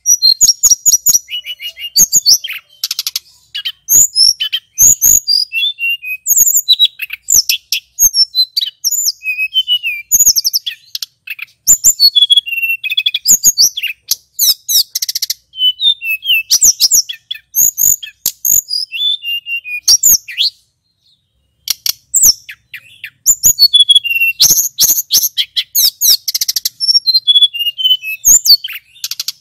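Male hill blue flycatcher (tledekan gunung) singing a long, almost unbroken run of fast, high, varied whistled phrases with rapid trills mixed in. There is one short pause about two-thirds of the way through.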